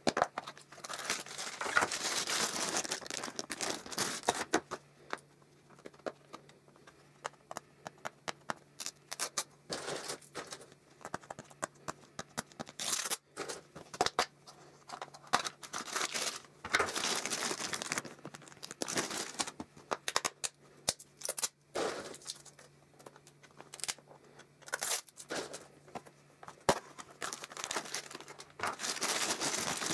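Plastic capsule toys being opened by hand: paper and plastic wrapping crinkling and tearing, with sharp clicks, coming in irregular spells with short pauses between. A faint steady low hum runs underneath.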